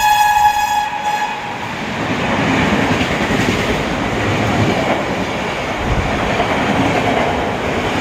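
A train horn, its pitch dropping as it passes, fading out about a second and a half in. Then the steady rumble and rattle of passenger coaches running through the station at speed.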